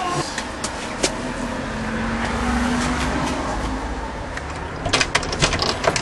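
Steady rumble and rush of a handheld camera on the move, then a quick run of sharp knocks and clicks near the end as the front door is reached and opened.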